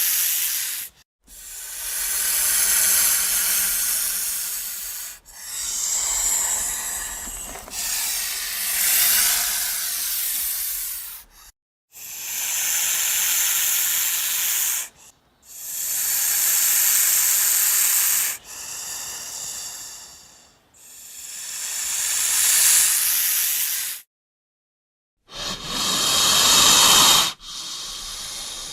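A snake hissing in a series of long hisses, each lasting two to four seconds with short breaks between, about ten in all.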